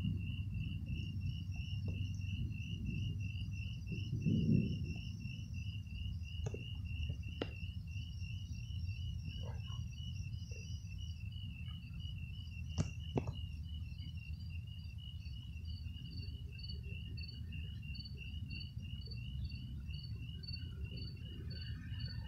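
Crickets chirping steadily at about three chirps a second, and a second, higher-pitched insect joins about halfway through, chirping more slowly. Under them runs a low rumble, loudest near the start, with a few sharp clicks.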